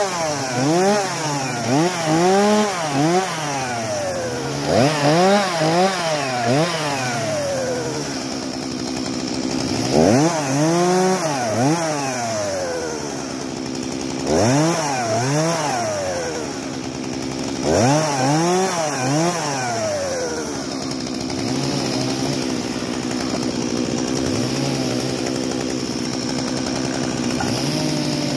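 Stihl petrol chainsaw revved in short bursts of quick throttle blips, the engine pitch climbing and dropping several times in each burst, then left running at a steady idle for the last several seconds.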